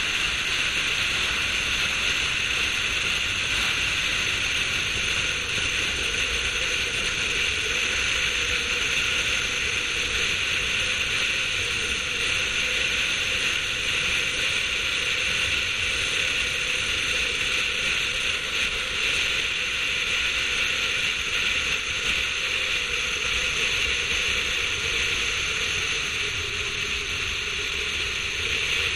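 Steady wind and road noise rushing over a roof-mounted GoPro on a car driving at speed, with a faint steady tone underneath that dips slightly in pitch near the end.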